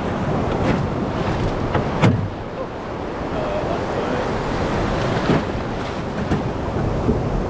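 Shallow water washing and splashing around a small aluminium boat's hull, with wind buffeting the microphone. There is a sharp knock about two seconds in and another about five seconds in.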